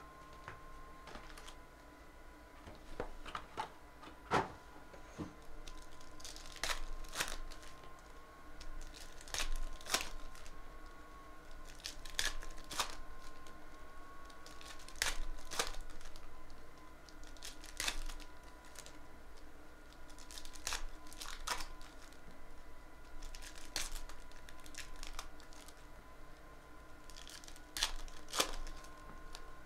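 Foil wrappers of 2017-18 Panini NBA Hoops card packs being handled and torn open, crinkling, with irregular sharp crackles. A faint steady tone sits underneath.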